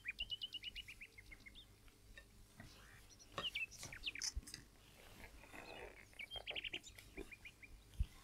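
A small songbird chirping faintly: a quick run of high chirps at the start and again after about six seconds, with a few single rising and falling calls in between.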